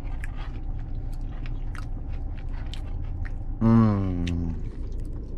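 A person chewing a crispy fried chicken nugget, with quick crunching clicks throughout. A little past halfway comes a short hummed "mmm" with a falling pitch.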